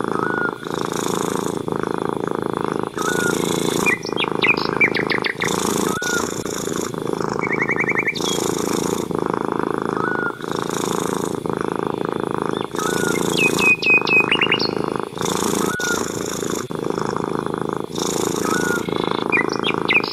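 A cat purring steadily, with a short break about every second. Birds chirp in short trills now and then.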